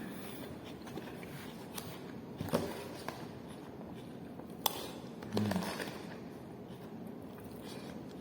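Quiet eating sounds: faint chewing with a few scattered short clicks and taps, the sharpest about two and a half and about four and a half seconds in.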